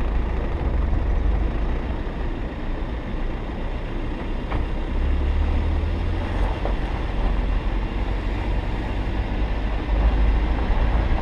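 Car driving on a snow-covered road, heard from inside the cabin: a steady low engine drone and tyre rumble.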